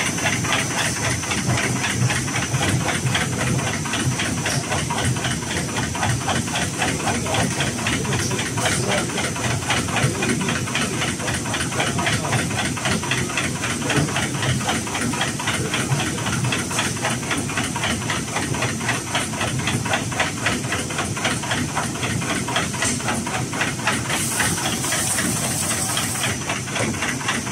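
CNC knife pleating machine running, its blade folding filter media with a rapid, even clatter of many strokes a second over a steady high whine. A short hiss comes in near the end.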